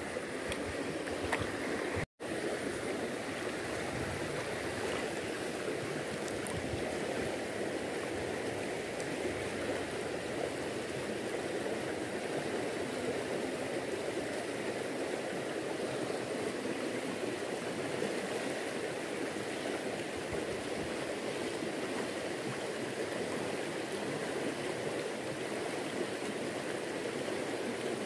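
Fast-flowing river current rushing steadily, with one split-second dropout about two seconds in.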